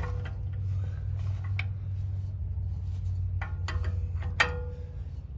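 Steel wrench clinking on the steering linkage's locking nut as it is snugged up: a handful of sharp, irregular metallic clicks. The loudest comes near the end, with a short ring.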